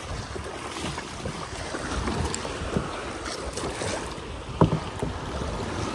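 Kayak on open water: wind rumbling on a phone's microphone over water lapping against the hull, with one sharp knock about four and a half seconds in.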